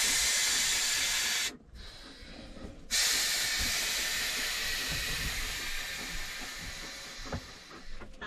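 A steady, even hiss. It cuts out about one and a half seconds in, comes back a little over a second later, and slowly fades.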